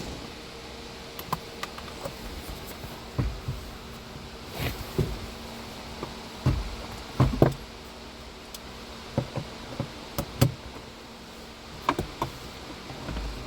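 Irregular knocks, taps and clicks of hands and tools working on a car's AC blower motor under the dashboard, over a steady low hum.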